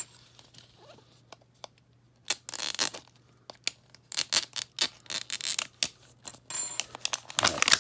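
Sticker seal on a plastic capsule ball being slit with a small blade and peeled away, in irregular bursts of short scratchy tearing and rustling.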